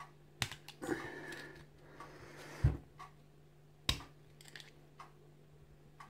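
Screwdriver levering at the retainer in the face of a cheap disc-retainer padlock: scattered metal clicks and short scrapes, with a louder knock about two and a half seconds in and a sharp click near four seconds. The retainer is being prised out of the lock body.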